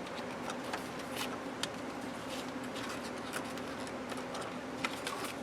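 Paper and plastic planner inserts and dividers being handled and turned, giving scattered small clicks and taps over a steady low hum.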